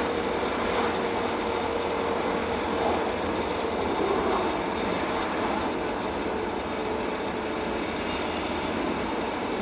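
Freshly rebuilt rear differential of a 1997 Ford Ranger whirring with a whine as the truck decelerates in fourth gear, heard inside the cab over steady road and drivetrain noise; the whine holds steady, then fades about halfway through. The owner suspects loosened pinion preload or a faulty pinion bearing, and says a whine can come from the ring and pinion gears not meshing properly.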